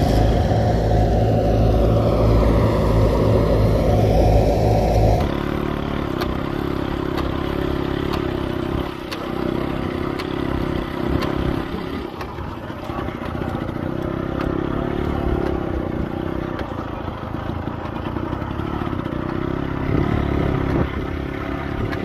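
Engine-driven wheat threshing machine running, a steady mechanical drone with clatter. About five seconds in the sound shifts abruptly to a lower, quieter drone with rapid rattling clicks.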